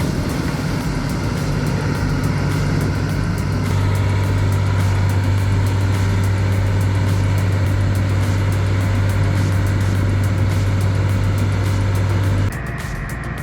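Heavy machine's diesel engine running steadily with a deep hum, getting louder about four seconds in and cutting off suddenly near the end.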